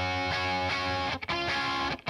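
Background music led by electric guitar chords, with a short break a little past a second in.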